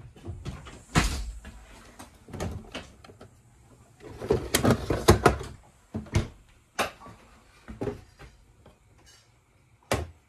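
Kitchen knocks and clatter from things being handled, with a door-like bang about a second in, a quick run of clatters around the middle, and another sharp knock near the end.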